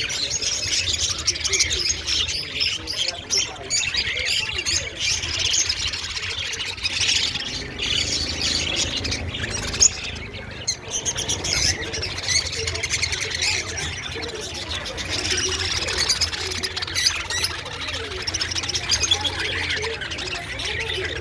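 Many small pet parrots, such as budgerigars and lovebirds, chirping and squawking together in a dense, continuous chatter over a steady low hum.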